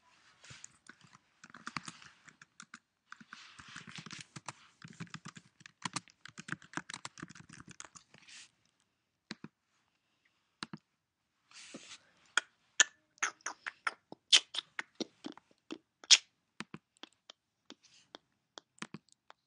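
Typing on a computer keyboard in quick runs of key clicks through the first eight seconds or so. After a pause, a string of sharper, more widely spaced single clicks follows.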